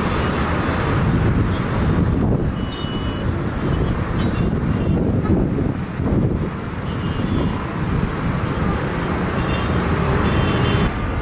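Loud, steady rumble of engines and vehicles on an airport apron, with a few faint, short high beeps at irregular moments.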